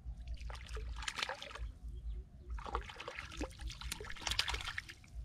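A hooked striped catfish (sawai) thrashing and splashing at the water's surface as it is drawn in close to the bank, in irregular bursts of splashing.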